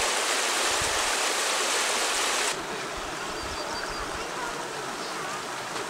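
Shallow rapids of the young Mississippi River rushing in a loud, even wash. About two and a half seconds in it cuts to a quieter flow of water over the rocks, with faint voices.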